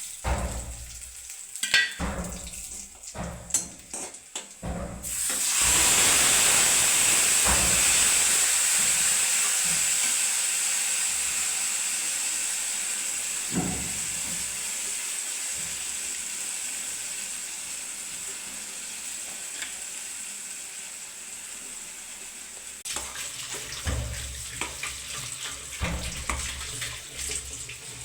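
Food sizzling loudly in hot oil in a pan: the sizzle starts suddenly about five seconds in and dies down slowly. Before it and near the end come irregular clinks and scrapes of a utensil against the pan.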